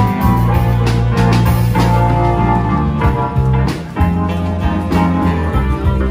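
Band music with guitar and drums.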